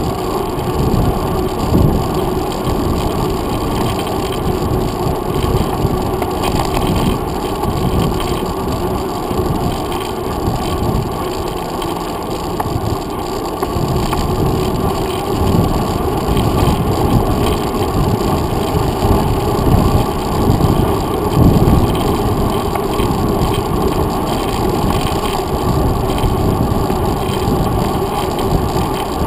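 Muffled, steady rumble of wind buffeting and tyre noise picked up by a handlebar-mounted GoPro Hero 2 on a mountain bike rolling along a paved trail, with uneven low thumps from bumps in the path.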